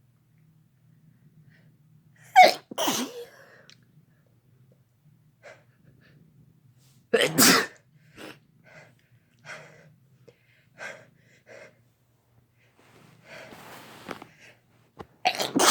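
A person sneezing repeatedly. There is a loud double sneeze about two seconds in and another loud sneeze around seven seconds, followed by a run of short, quieter bursts. A breathy stretch leads into another sneeze right at the end.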